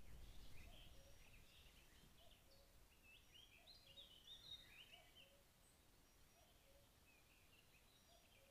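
Faint songbirds chirping in the background, busiest in the middle, with a softer low note repeating about once a second. A brief low rumble in the first second.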